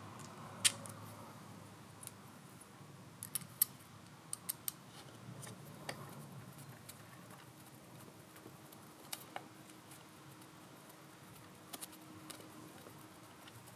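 A hex screwdriver driving small screws into the plastic rear-wing mount of a 1:8 RC buggy: scattered light metallic clicks and ticks, several close together from about three to five seconds in.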